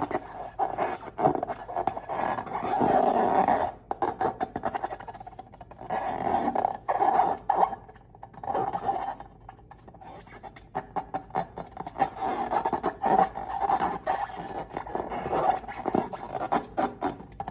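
Slime and rubber balloons being squeezed and worked by hand: irregular sticky clicking and crackling with rubbery squeaks, coming in clusters with short lulls.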